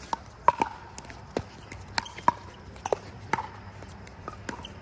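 Pickleball paddles hitting a hollow plastic ball in a rally: a quick, irregular run of sharp pops, each with a short ring, thinning out near the end.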